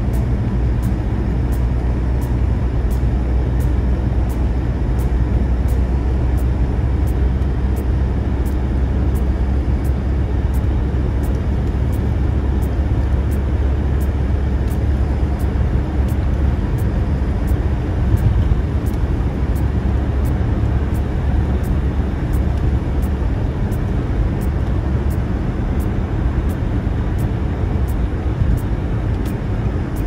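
Steady low rumble of a car's engine and tyres heard from inside the cabin while driving on a snow-covered freeway.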